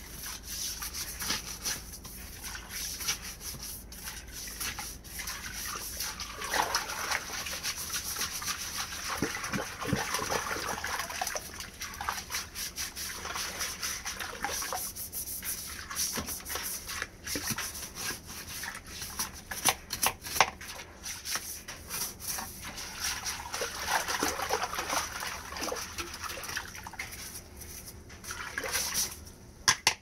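A toilet brush scrubbing and swishing in the water of a sump pit, scouring iron ochre off the submersible pump and its pipes, with small splashes and scrapes in uneven spells.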